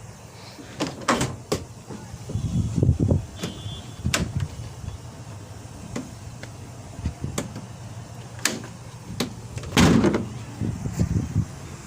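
Scattered knocks and clicks over a low rumble, with one louder thump a little under ten seconds in.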